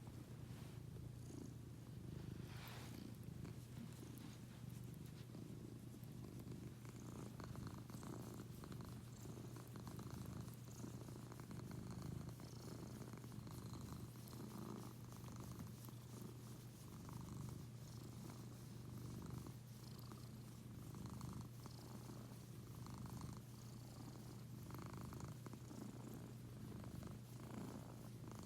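Domestic cat purring steadily: a low continuous rumble that swells and eases with each breath, about every two seconds.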